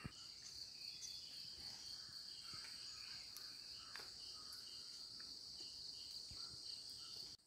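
Faint, steady high-pitched trilling of insects. It cuts off suddenly near the end.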